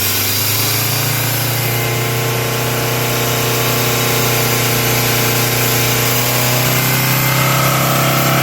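Ford Endeavour 2018 diesel engine running with the accelerator held, its revs rising about a second in and again near the end. The noise being chased on it is a whistle that the mechanic traces to a swollen, cracked intake air pipe drawing air.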